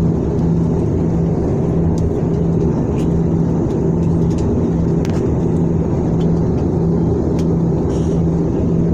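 Steady jet airliner cabin noise at a window seat beside the engine during descent: a constant rushing roar of engine and airflow with a low, even hum underneath.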